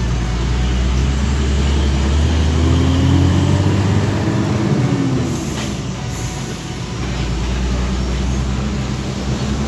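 Truck engine running as the vehicle works along a rough, muddy road, its revs rising and then falling back. A short hiss sounds twice, about five and six seconds in.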